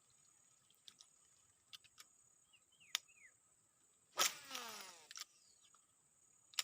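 A baitcasting reel's spool whirring out during a cast, about four seconds in, its pitch falling as the spool slows over about a second. Scattered sharp clicks come before it and another comes near the end.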